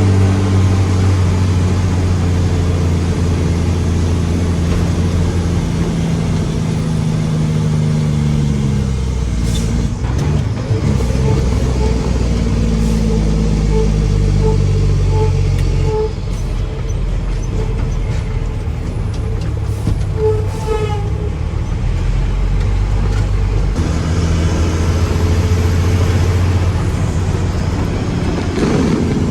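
Mack truck's diesel engine running under way, its pitch sliding down twice as the revs drop, then running low for several seconds before picking up again near the end.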